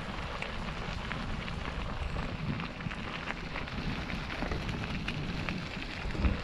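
Steady patter of rain with wind buffeting the microphone, scattered small drop ticks over a low rumble.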